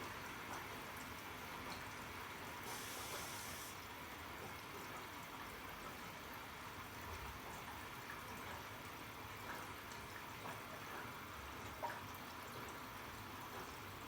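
Arçelik 3650 SJ washing machine taking in water: a faint, steady hiss of water running in through the inlet. The hiss brightens briefly about three seconds in, and there is one small click near the end.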